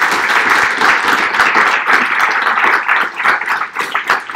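Audience applauding, a dense patter of many hands that thins out into fewer, separate claps toward the end.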